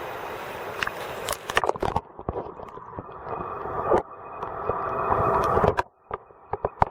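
Mountain stream water rushing and splashing, with knocks and clicks of handling close to the microphone. The sound turns muffled after about two seconds and drops out abruptly near the end, before more scattered clicks.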